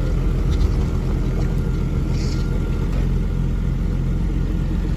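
Jeep Grand Cherokee WJ engine idling steadily: an even, low hum that holds the same pitch throughout.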